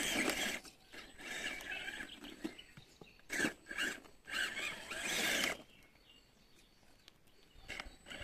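RC rock crawler's electric motor and geared drivetrain whirring in short throttle bursts as it climbs wet rock and dirt. The bursts come one after another over the first five seconds or so, then stop, with one brief burst near the end.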